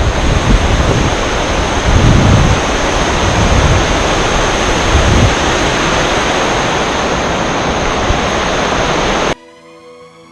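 Loud steady rushing noise with low rumbling gusts, cut off abruptly about nine seconds in. Faint music follows.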